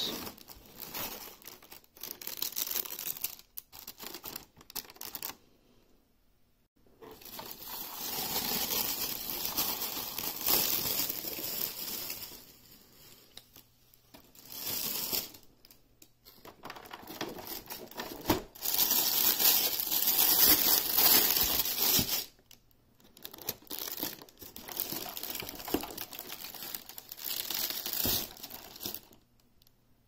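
A clear plastic bag around a new keyboard rustles as hands handle it and pull it off, in several bursts of a few seconds with short pauses between.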